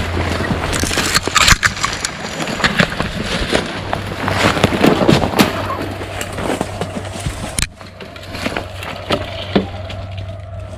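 Someone pushing on foot through dry brush, with rustling and repeated sharp snaps and cracks of twigs and sticks breaking underfoot; it quietens about three-quarters of the way through.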